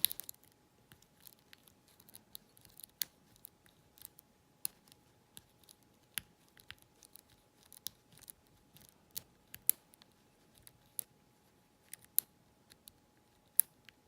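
Small, sharp metallic clicks and scratches, irregular and spaced out, from a deep-hook lock pick working the wafers of a Corbin wafer cabinet lock under a tension wrench.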